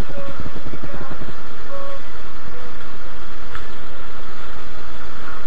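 Fishing boat's engine running steadily under way, a low throbbing in the first second or so, mixed with wind and water noise.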